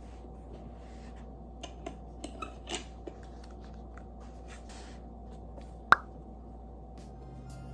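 Steady low room hum with a handful of light clicks and taps about two to three seconds in, and one sharp, louder click about six seconds in.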